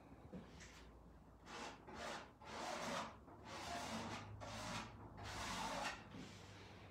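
Paint being rubbed through a silk screen stencil onto a metal bucket: about five short, faint scratchy strokes, starting about a second and a half in.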